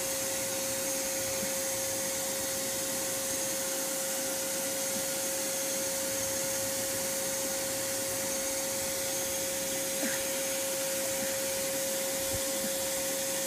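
Bee vacuum running steadily with one constant whine, sucking bees out of tree branches through its pipe.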